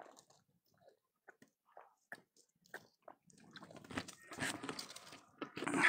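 Crunching and crackling close to the microphone, a few scattered clicks at first, then denser and louder over the last couple of seconds.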